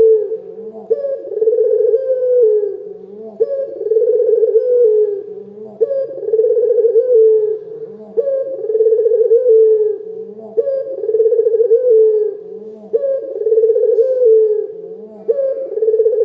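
Barbary dove (Indonesian 'puter lokal') cooing in a big, full voice: a rolling coo repeated about every two and a half seconds, seven times, each ending in a short lower note.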